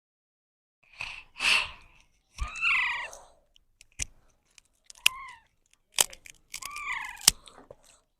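Parrots calling in short, bending squawks, three times, with a few sharp clicks in between.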